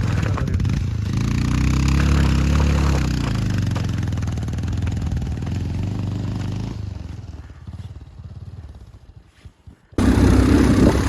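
Motorcycle engine revving up and easing off as it labours along a slippery trail, then fading away to near silence about two-thirds in; engine sound comes back suddenly near the end.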